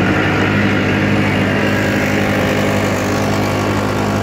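Small boat's outboard motor running steadily at a constant speed.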